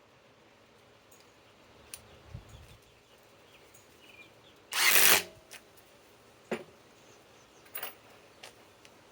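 Cordless compact impact driver run in one short, loud burst of about half a second, roughly five seconds in, followed by a couple of sharp clicks.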